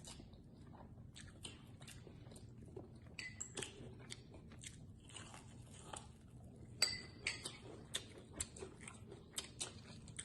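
Crunching and chewing on deep-fried frog legs in a crushed hot Cheeto crust: faint, irregular crackles, with a few louder crunches about seven seconds in.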